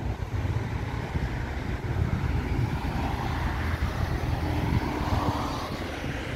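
Road noise of a moving vehicle heard from inside: a steady low rumble with an even hiss over it.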